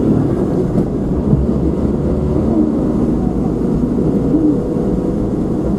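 Steady low rumble of a car being driven, engine and tyre noise on the road.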